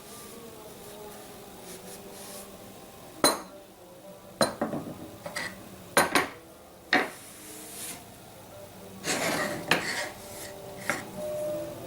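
Kitchen utensils and dishes clinking and knocking: a series of irregular sharp clinks, with a brief scraping stretch about nine seconds in.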